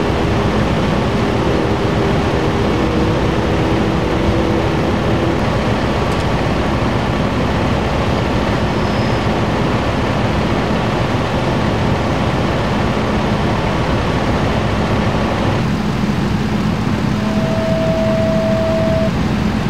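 Fire engine diesel engines running at idle, a loud steady rumble with a constant hum. Near the end, a brief steady whine of about two seconds is heard over it.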